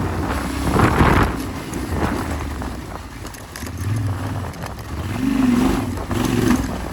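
Yamaha Ténéré 700's parallel-twin engine running off-road, with a brief rush of noise about a second in. The engine eases off around three seconds in, then revs up in short rises near the end.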